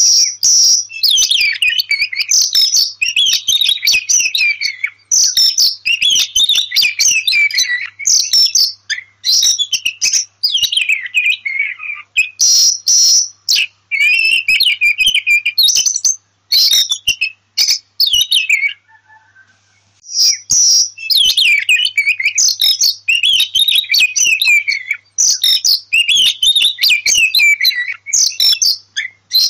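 Oriental magpie-robin (kacer) singing a long run of rapid, varied whistled and harsh phrases, with a break of about a second and a half about two thirds of the way through.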